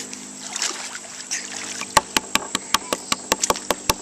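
Water lapping and splashing softly around a swimmer. About two seconds in, steady hand clapping starts: sharp, evenly spaced claps, about five a second.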